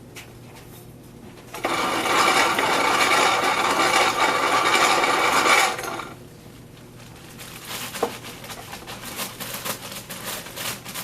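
Malted grain poured into a container for about four seconds, a steady rushing rattle of kernels, followed by scattered small rattles and clicks as the grain is handled.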